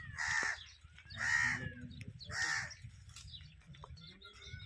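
A bird calling three times, about a second apart, each call short and loud, over a low steady rumble.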